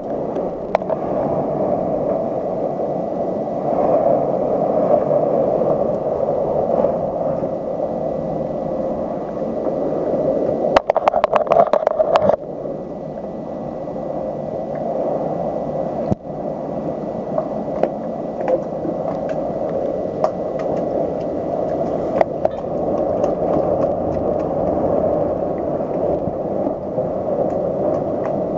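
Hurricane wind blowing steadily outside, heard from inside a house, with a burst of rattling about eleven seconds in and scattered knocks and clicks.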